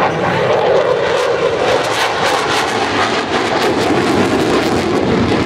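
USAF Thunderbirds F-16 jet fighter making a low pass, its jet engine noise loud and steady with a crackling edge.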